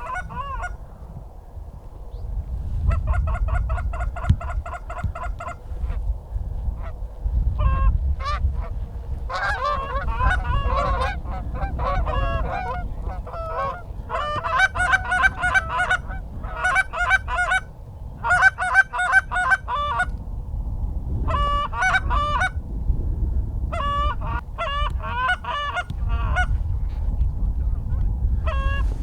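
Canada goose honks and clucks in rapid runs of several calls a second, coming in repeated bursts, over a low rumble.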